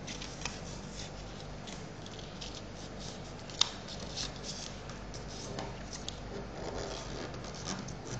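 A sheet of origami paper being folded and creased by hand: soft rustling and small crackles of the paper, with one sharper crisp click about three and a half seconds in.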